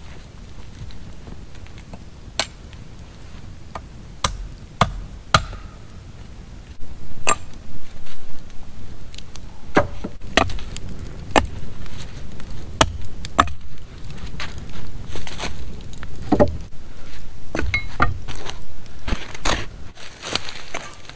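Sharp wooden knocks and chopping strikes as timber is worked by hand, coming irregularly about once a second. Near the end the strikes crowd together into longer, rougher strokes.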